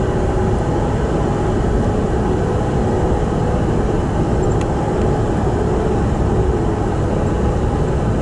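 Steady road and engine noise of a vehicle driving at an even speed.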